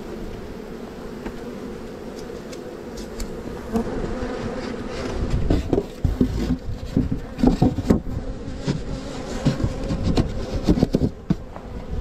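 Many honeybees buzzing close to the microphone, a steady hum. From about four seconds in, irregular knocks and bumps from handling a polystyrene hive box and its lid.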